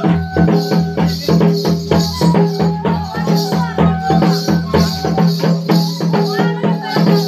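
Santali Karam dance music: a fast, even percussion beat with a rattling, shaker-like edge, over a steady low drone and a held melody line.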